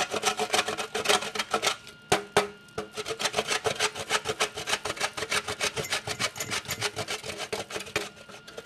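A block of natural cane sugar being grated on a metal hand grater: quick, even scraping strokes, several a second, with a short pause about two seconds in.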